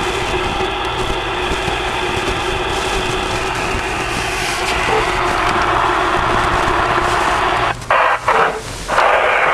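Receiver static from a ten-meter/CB radio's speaker, a steady hiss that grows brighter about halfway through, then cuts out briefly twice near the end and returns louder.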